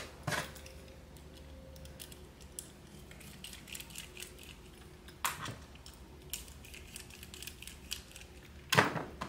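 Small screwdriver backing the screws out of a metal bag grommet to take its back plate off: scattered light metallic clicks and ticks as the tool and hardware are handled, with a few louder clicks about five seconds in and near the end.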